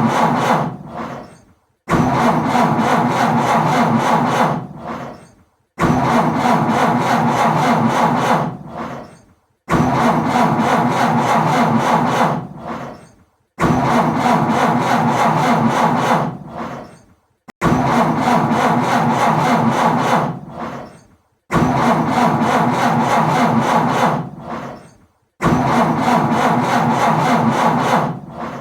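A car's starter cranking the engine, which won't catch. There are seven evenly spaced attempts, one about every four seconds. Each starts abruptly, cranks steadily for a couple of seconds, then dies away.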